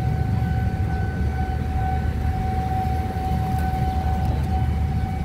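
Steady low rumble of street background noise with one constant high-pitched whine running through it.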